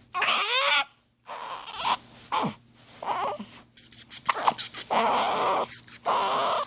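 Newborn baby crying while it has the hiccups: a loud high cry at the start, then a run of shorter cries and fussing sounds broken by brief pauses for breath.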